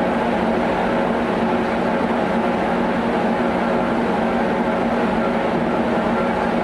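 Veneer peeling lathe running steadily as it peels an Okoume log: a continuous, even machine noise with a steady low drone.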